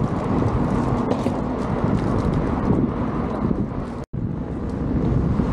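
Wind buffeting the microphone and an electric unicycle's tyre rumbling over brick paving while riding, with many small clicks. The sound cuts out for an instant about four seconds in, then resumes.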